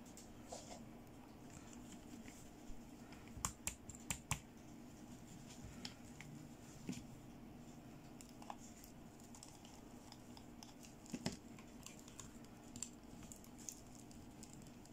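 Quiet clicks, taps and light scratching of fingers handling a plastic fashion doll, moving its jointed arms and legs, with a cluster of sharper clicks about three to four seconds in and another around eleven seconds.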